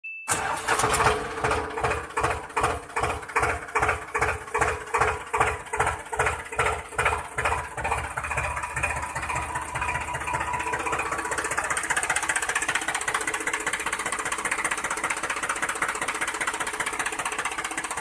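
Tractor engine chugging in slow, evenly spaced beats of about three a second, then settling about halfway through into a steady, faster run.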